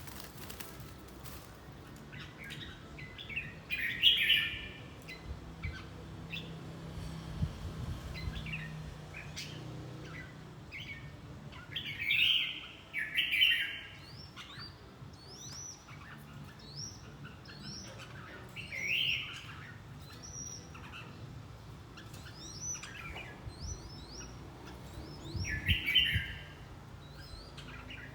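Red-whiskered bulbuls singing in sparring practice: loud short song phrases every few seconds, with quick high chirps in between.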